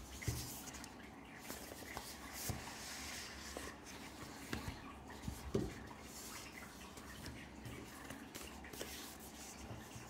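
Handling of a Blu-ray's thin cardboard slipcase and digipack: soft rustling as the case slides out, with several light knocks of cardboard on the tabletop, the loudest a little past halfway.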